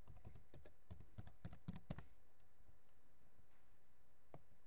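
Faint typing on a computer keyboard, a quick run of about a dozen key clicks over the first two seconds as a password is entered, then a single click near the end.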